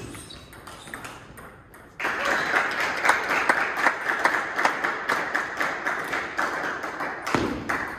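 Clapping and cheering in a large hall, starting abruptly about two seconds in and lasting about five seconds. A single loud hit stands out near the end.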